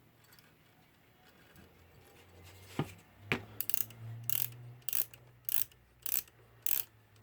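The alarm mainspring of a Salmon Mauthe alarm clock movement is being wound with a key, the ratchet click snapping over the teeth. After a quiet start, the clicks come at an even pace of a little under two a second.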